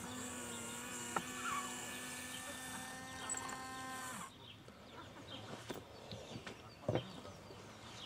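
Small electric motor whining steadily as it folds down the model warning trailer's arrow board, cutting off about four seconds in. Faint bird chirps and a few light clicks follow.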